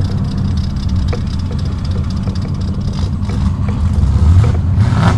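1949 Chevrolet pickup's engine running at a rumble, swelling and revving up a little about four seconds in.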